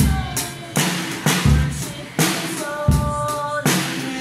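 Music with a drum-kit beat, a hit with a deep bass-drum thump about every three-quarters of a second, and held melodic notes over it.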